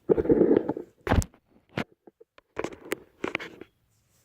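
Packaged Hot Wheels cars being handled: a burst of rustling of the card-and-plastic blister packs, then a sharp knock about a second in and several lighter clicks and taps as the packages are set down and picked up.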